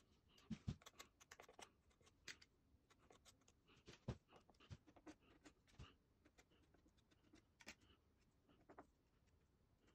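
Faint, irregular scraping with light ticks and a few soft knocks: a small metal spatula spreading and scraping plaster adhesive over the joint between plaster mouldings.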